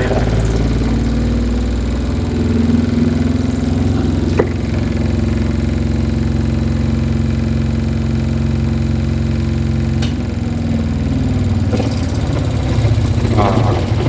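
Spin-dryer motor of an Aqua twin-tub washing machine running with a steady hum, on a new 5 µF capacitor fitted to cure a weak spin. A sharp click about four seconds in and another about ten seconds in, after which the hum starts to fade.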